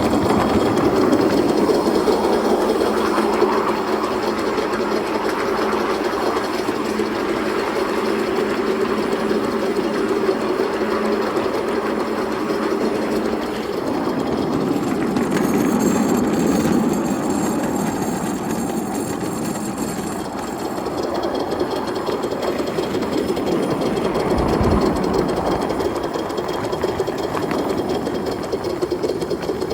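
Live-steam scale model of the Western & Atlantic 4-4-0 locomotive 'General' running along its track, with a steady train noise throughout and a brief low bump about 25 seconds in.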